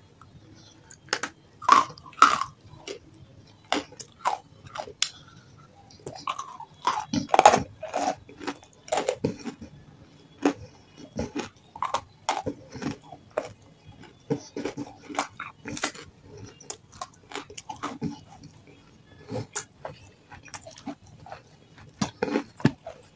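Close-up crunching and chewing of half-roasted nakhumat, grey chunks of edible clay coated in a wet clay paste. The sharp crunches come at irregular intervals, loudest about two seconds in and again around seven seconds.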